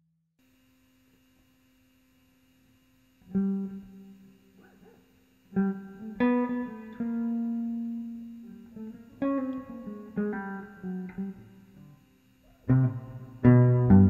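Hollow-body archtop electric guitar playing slow, sparse chords, each left to ring and fade. It comes in about three seconds in, after near silence.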